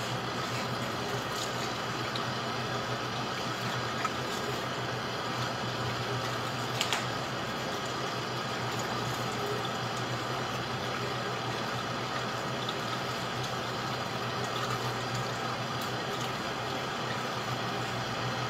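Kitchen tap running steadily into a metal mesh strainer of dried hibiscus flowers as they are stirred and rinsed, with a couple of faint clicks of the spoon against the strainer.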